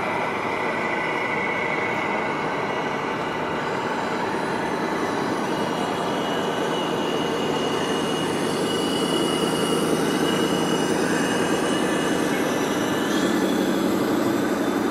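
Steady din of a busy exhibition hall with the thin whine of radio-controlled model trucks' electric drives; near the end the whine steps up in pitch and a lower hum grows slightly louder.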